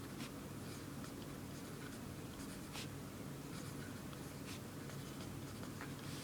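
Zebra mechanical pencil writing faintly on paper: short, irregular scratchy strokes over a low steady hum.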